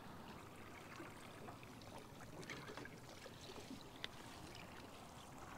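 Near silence: faint water lapping at a small boat's hull, with a few light ticks and one clearer tick about four seconds in.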